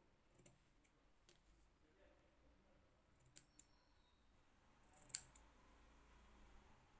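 Near silence broken by a few faint clicks of metal scissors, whose tip is pushing woolen thread onto glued paper; the sharpest click comes about five seconds in.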